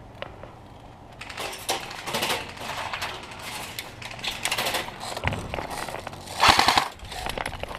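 Airsoft guns firing BBs in rapid clusters of sharp shots, starting about a second in, with the loudest burst near the end.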